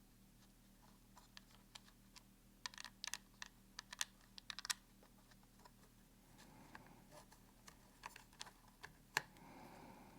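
Light, sharp clicks and taps of small bolts being picked up and threaded into a holster and its QLS fork, clustered in the first few seconds, then soft rubbing with a few more clicks toward the end.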